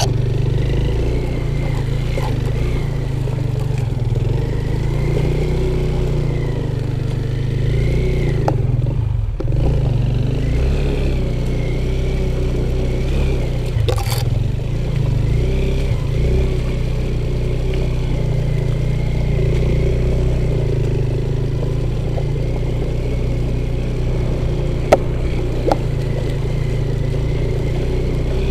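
Off-road motorcycle engine running under load, its revs rising and falling, with a few sharp knocks and clatter along the way.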